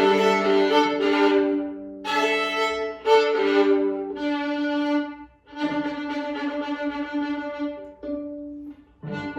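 Solo violin playing a classical piece: long held bowed notes in phrases, with short breaks about two seconds in, just past the middle, and near the end.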